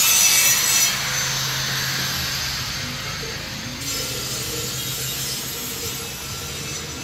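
Handheld angle grinder cutting or grinding steel, a loud hissing whine that drops to a fainter, steady grind about a second in.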